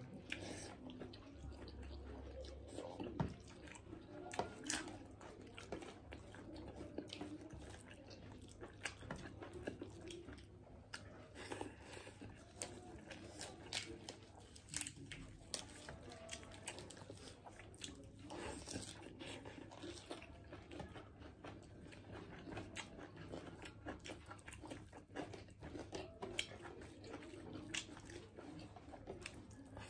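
Close-miked chewing and biting as two people eat rice, mutton curry and raw leafy greens by hand, with many small crunches and mouth clicks throughout.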